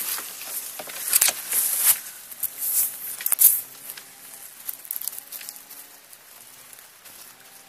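Close scratching and rustling as a vervet monkey clambers over the camera and through dry grass, its fur and paws rubbing on the microphone. It is loudest and most busy in the first three and a half seconds, then fainter.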